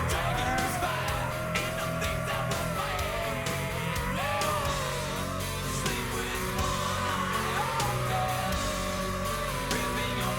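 Background rock music with guitar and a singing voice over a steady beat.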